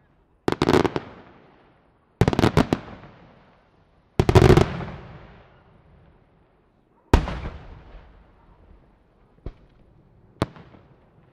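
Aerial firework shells bursting: four loud volleys of rapid cracks about two seconds apart, each dying away in a rolling echo, then two lighter single bangs near the end.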